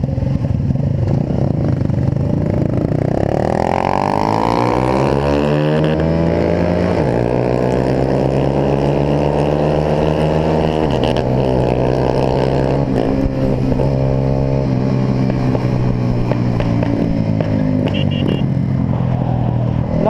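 Small single-cylinder motorcycle with an aftermarket exhaust pulling away from a stop. It revs up, drops in pitch at each of three gear changes in the first half, then holds a steady cruising note.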